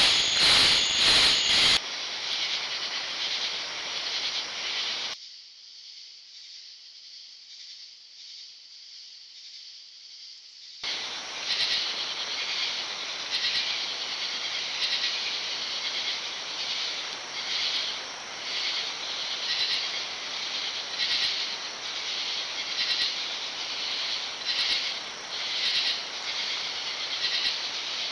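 Outdoor ambience from trail camera microphones: a high-pitched hiss that changes abruptly at cuts between clips, with an uneven pulsing through the last long stretch.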